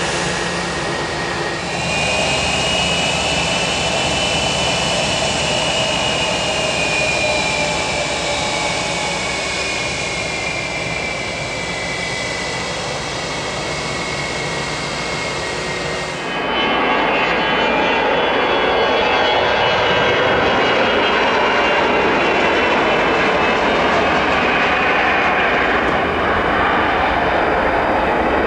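Twin rear-mounted turbofans of a large business jet: a high whine, slowly falling in pitch, over steady jet noise as it taxis and lines up. About halfway through, the sound becomes louder and fuller as the engines go to takeoff power and the jet lifts off.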